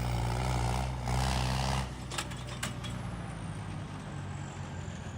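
Diesel tractor engine running steadily for about two seconds, then dropping to a rougher, quieter rumble, with a few sharp clicks shortly after.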